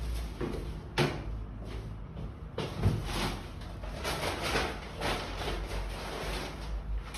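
Rustling handling noise, with a sharp knock about a second in and a dull thump near three seconds.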